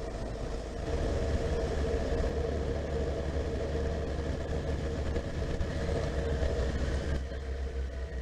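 Honda CB1300SF's inline-four engine idling steadily.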